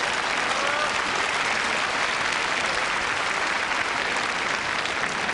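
Large arena audience applauding steadily, a dense even clapping.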